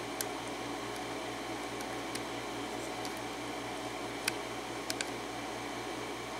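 Steady low background hum with a few faint, sharp clicks of a pick working the pins of a five-pin Defiant padlock under tension; the clearest clicks come about four and five seconds in.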